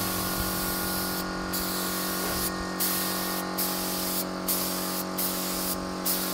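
Spray can hissing as clear coat is sprayed in passes, the hiss briefly breaking off several times between strokes.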